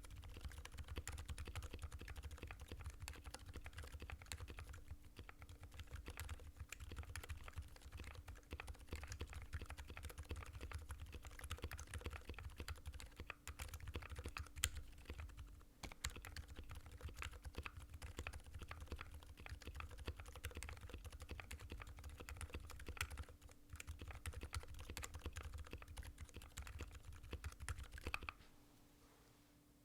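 Typing on a Satisfaction75 mechanical keyboard with MX Zilents silent tactile switches (lubed, with TX films), GMK keycaps and an FR4 plate: a continuous, irregular stream of quiet, muted keystrokes. The typing stops about a second and a half before the end.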